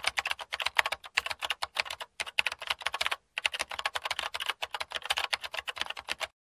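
Rapid computer-keyboard typing: a dense run of short clicks, several a second, with two brief pauses about two and three seconds in, stopping just before the end.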